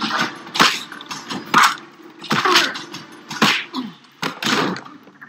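Movie fight-scene sound effects: a fast series of about six hard punches and blows landing, with cracking and breaking crashes among them.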